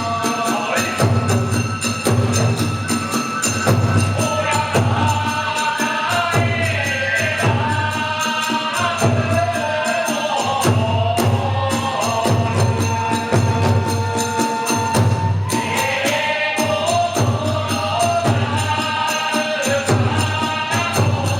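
Kagura accompaniment music: a taiko drum beating a steady rhythm and small hand cymbals clashing, with a chanted melody over them.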